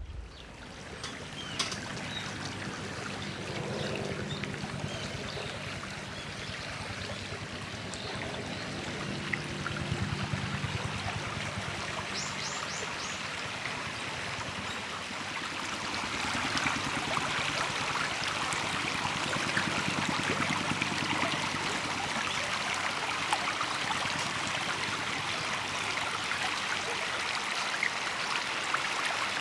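Steady running or bubbling water with fine crackles and ticks through it, growing louder about halfway through.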